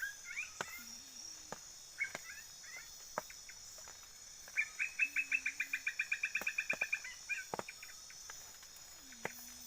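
Night tropical forest chorus: crickets and other insects trill steadily, while an animal gives a rapid run of chirps, about eight a second, from about the middle of the stretch for some two seconds. A few short low calls, shorter chirp groups and scattered sharp ticks sound around it.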